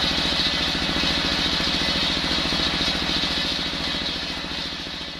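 Stationary single-cylinder diesel engine running steadily, with a rapid even beat, under a hissing whir as it drives an unloaded sawmill circular saw. The sound fades out toward the end.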